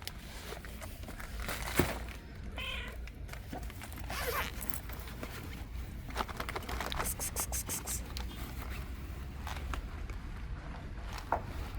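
A stray cat giving a short meow that falls in pitch about four seconds in, amid scattered small clicks and rustles and a quick run of clicks near the middle.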